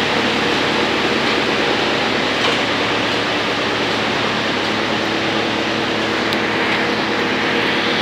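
218 wood chipper and its chip conveyor running steadily during a trial run. The machine makes a loud, even noise with a low hum under it and a couple of faint ticks.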